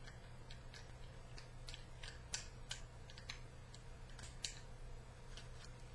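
Faint, irregular small clicks and scrapes of steel parts: the slide and recoil spring of a Colt 1903 Pocket Hammerless .32 ACP pistol being worked by hand onto its frame during reassembly. A low steady hum runs underneath.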